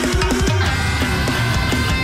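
Rock-style instrumental background music with guitar and drums, at a steady loud level.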